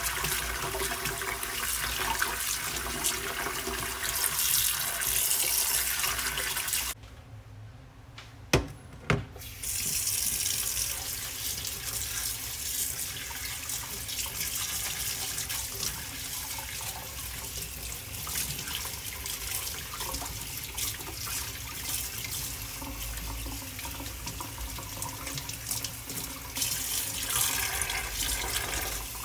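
Kitchen tap running into a stainless steel sink while food is rinsed and rubbed by hand under the stream: first fish pieces in a plastic colander, then pickled mustard greens. About seven seconds in the water stops for a couple of seconds, with two sharp knocks, then runs again.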